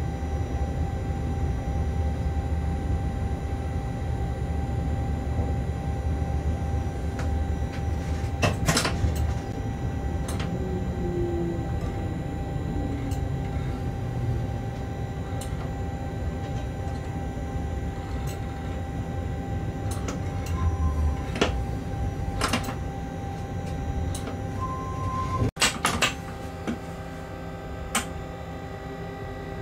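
Running noise inside a locomotive cab rolling slowly through a rail yard: a steady low rumble with electrical hum, sharp clicks and clanks now and then as the wheels pass over track joints and points, and two short beeps in the second half.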